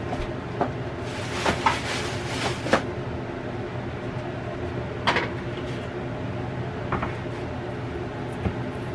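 Cosori air fryer oven running at 375 with a steady hum. Over it come several sharp knocks and clatters of things handled on the counter: a cluster between one and three seconds in, then single knocks about five, seven and eight seconds in.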